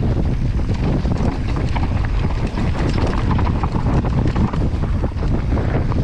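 Wind buffeting the microphone on a fast mountain-bike descent, over the steady rumble of knobby tyres on a dry dirt trail, with the bike rattling and clattering over small bumps.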